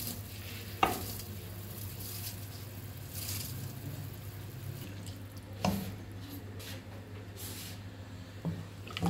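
Rice poured from a glass bowl into a pot of boiling meat stock for pulao, dropping wetly into the liquid, then the stock simmering. A few sharp knocks, the loudest about a second in, over a low steady hum.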